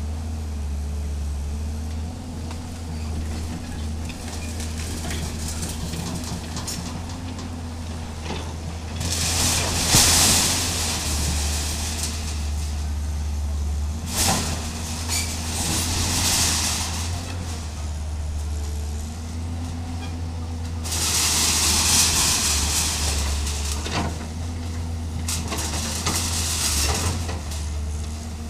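Hydraulic excavator's diesel engine running steadily, its hydraulics whining faintly. Three spells of crashing and scraping of broken timber and corrugated metal sheets as the machine works the demolition rubble: about nine seconds in, around fourteen seconds in, and about twenty-one seconds in, the first the loudest.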